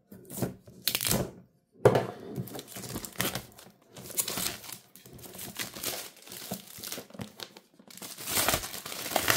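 Thin plastic shrink wrap being slit with a knife and torn off a cardboard box: a few short scratchy cuts, a sharp tear about two seconds in, then continuous crinkling and crackling as the film is peeled away by hand.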